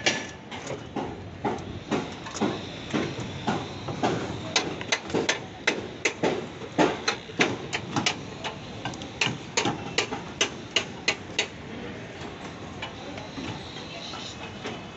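A run of sharp knocks at about two a second, like hammering on the slab. It stops about eleven seconds in, leaving steady site background noise.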